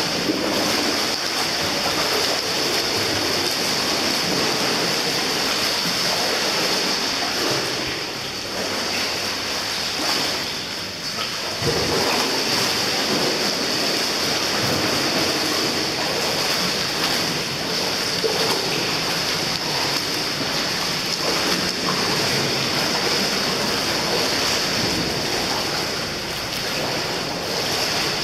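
Swimming pool ambience: a steady rush of water noise with no pauses.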